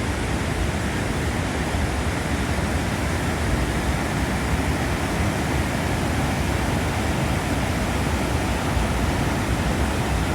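Victoria Falls, the Zambezi River plunging over the main falls: a loud, steady rush of falling water, an even noise that does not change.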